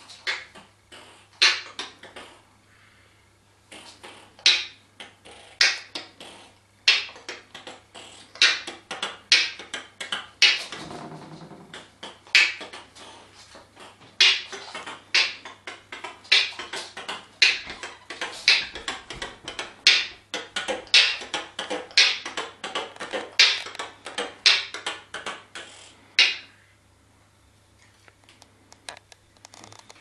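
African grey parrot beatboxing: a rhythmic run of sharp clicks and pops with breathy hiss, stopping a few seconds before the end. A steady low hum lies underneath.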